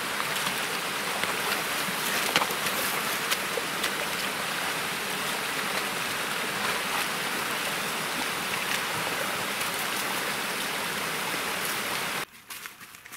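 Stream water running through a beaver dam of gnawed sticks: a steady, even rush of flowing water. It drops away suddenly near the end.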